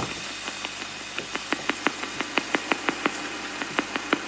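Spirit box radio sweeping through stations: a steady static hiss broken by a sharp click about six times a second.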